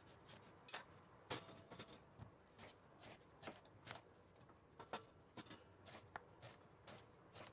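Faint knife strokes slicing peeled eggplant into rings, the blade tapping on a wooden cutting board in an irregular run of soft clicks, roughly two a second.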